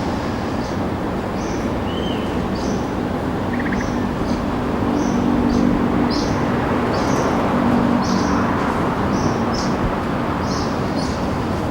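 Steady rumble of helicopters flying overhead, with a deeper engine hum that swells in the middle. Short high chirps repeat about twice a second over it.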